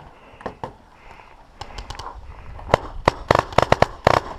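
Paintball markers firing: a few scattered pops, then from a little past halfway a rapid volley of sharp pops, about six a second.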